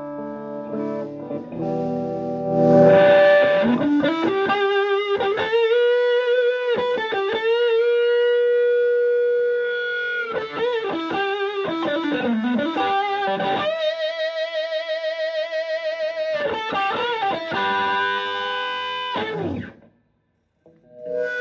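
Stratocaster electric guitar through a Klon Centaur-style overdrive pedal into a driven Fender Twin Reverb-style amp. A few chords open into a lead line of sustained notes with string bends and vibrato, which stops about a second and a half before the end, followed by one short note.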